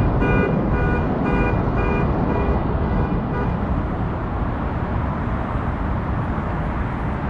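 A bell clanging in a quick series, about two strokes a second, fading out a few seconds in, over the steady low rumble of the trolley running.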